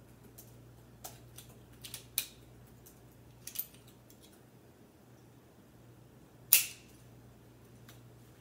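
Metal clicks from the action of a homemade .22 LR bolt-action rifle modelled on the 1879 Hotchkiss as it is worked by hand: several small clicks in the first half, then one much louder, sharp metallic snap about three quarters of the way through.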